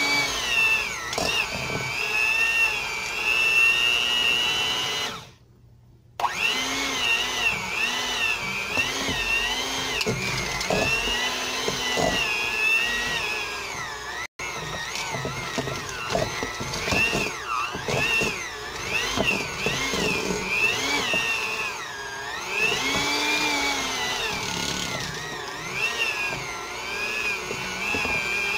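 Electric mixer beating cream cheese until smooth; the motor's whine wavers up and down in pitch as the beaters work through the thick cheese. It stops for about a second some five seconds in, then runs on.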